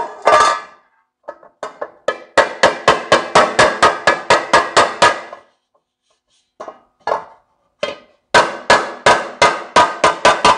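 Ball-peen hammer beating a dented sheet-metal Ford tractor air cleaner cover flat against a cast-iron differential housing, each blow ringing metallically. The cover clanks as it is set down, then come a few single taps and two fast runs of about five blows a second, with a pause between them.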